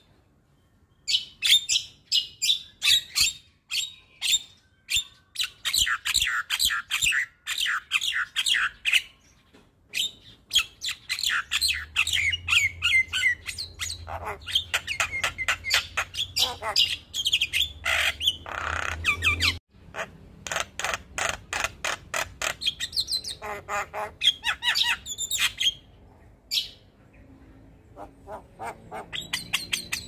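Javan myna (white-vented myna, jalak kebo) singing a long, fast chattering song of rapid repeated high notes, in phrases separated by short breaks.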